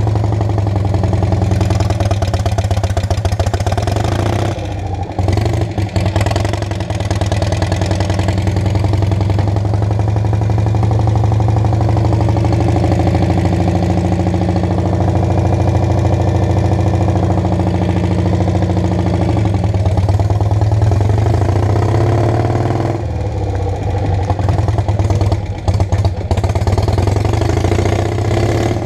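Donnet Zedel prototype's engine running as the car is driven, heard from the driver's seat, with a steady low hum and the engine note changing pitch now and then. The sound drops briefly twice, about five seconds in and again near the end.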